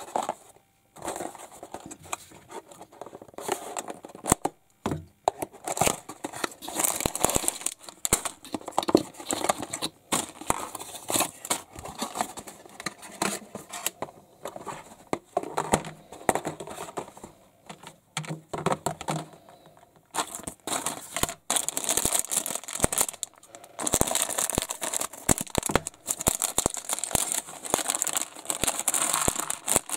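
Packaging being crinkled, rustled and torn open by hand: a near-continuous run of crackles and tearing with a few short pauses, loudest in the last third.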